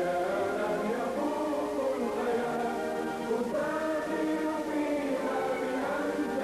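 Background music: a choir singing held, slowly moving chords.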